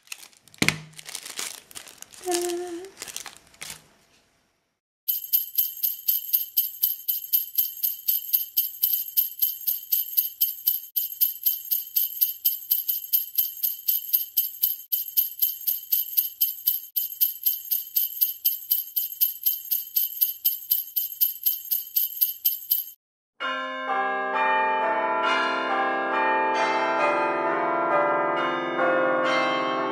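A stapler clicks in the first second or two. Then jingle bells shake in a steady rhythm of about three to four shakes a second for roughly eighteen seconds and stop abruptly, and a peal of ringing bells takes over near the end.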